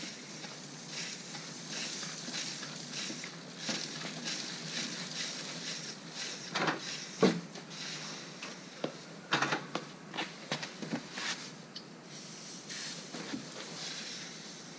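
Bike chain being greased and worked: a steady hiss with scattered clicks and rattles of the chain and drivetrain, bunched about halfway through.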